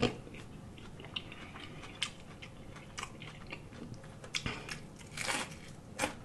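Close-miked chewing of fried catfish with crispy breading: soft crunches about once a second, a little stronger near the end as another bite is taken.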